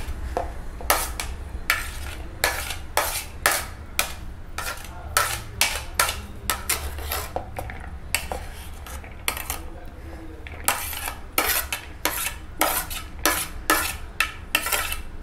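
Metal spoon scraping and tapping on a plastic plate and bowl as chopped onion, tomato, coriander and green chilli are pushed into the bowl: a string of irregular clicks and scrapes that come quicker in the second half. A low steady hum runs underneath.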